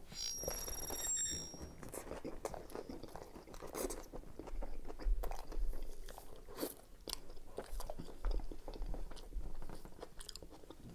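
A big bite into a toasted Subway chicken and bacon sub, then close-up chewing with many small crisp crunches and wet mouth sounds.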